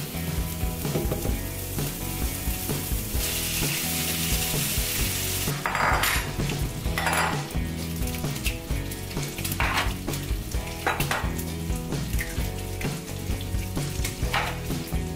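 Chopped bacon sizzling in a frying pan, with a louder, brighter hiss for a couple of seconds about three seconds in. A few sharp knocks and clinks follow at intervals as eggs are cracked into a glass bowl.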